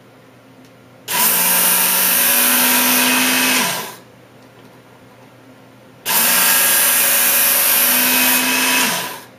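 Work Sharp Knife & Tool Sharpener's small belt motor switched on for two passes of about three seconds each, its red abrasive belt grinding the edge of a dull steel knife. The motor note rises partway through each pass and falls away as it is switched off.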